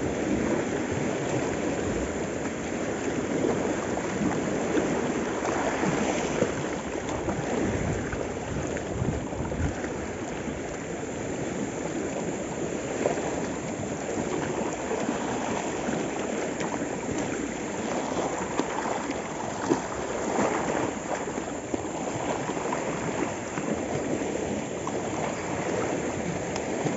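Small sea waves washing over and around shoreline rocks: a steady rush of surf with some swelling surges.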